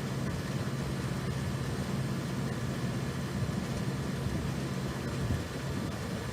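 A steady low mechanical hum holding one pitch, over a constant background rush.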